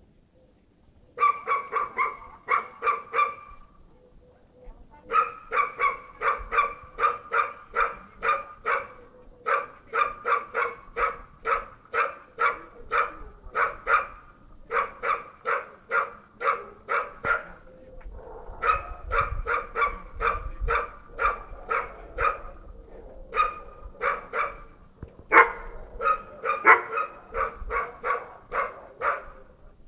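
Bull terrier barking over and over in fast runs of barks, about three a second, broken by short pauses.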